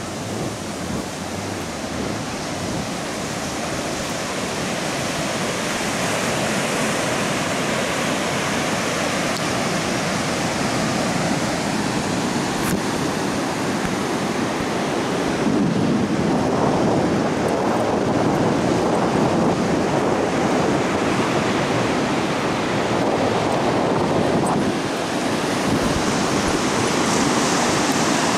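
Ocean surf breaking on a sandy beach: a continuous rushing wash of waves that swells louder about halfway through.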